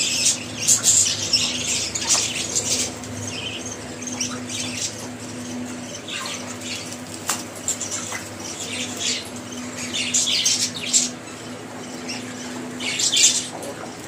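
African grey parrot making short, harsh squawks again and again, over a steady low hum.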